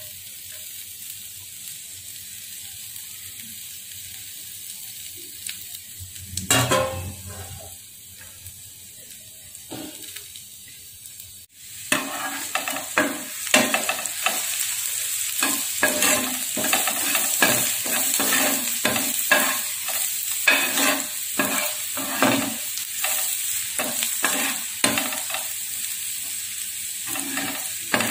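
Chopped garlic frying in hot oil in a non-stick pan, a steady sizzle with a single knock about six seconds in. From about twelve seconds in the sizzle is louder, and a ladle stirs and scrapes through the garlic with quick repeated strokes against the pan.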